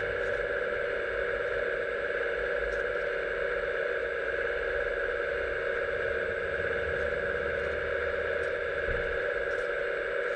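Hydraulic pump of an RC model excavator running with a steady whine while the boom slowly lowers a scissor lifting clamp, with a few faint clicks.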